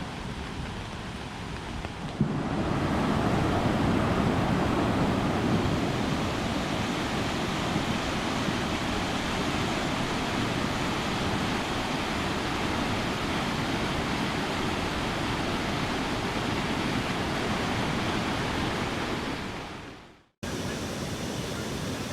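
Steady rush of water, louder from about two seconds in and fading out near the end.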